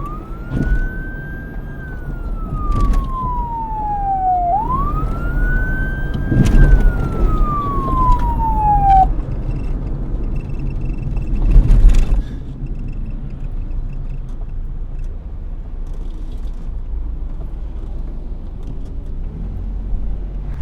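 Police car siren in a slow wail: two long sweeps, each rising quickly and then falling slowly, ending about nine seconds in. Street noise continues after it, with a loud burst of noise about twelve seconds in.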